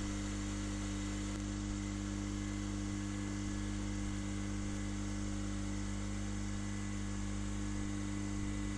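Steady electrical mains hum, a low buzz with a faint hiss under it and no change throughout.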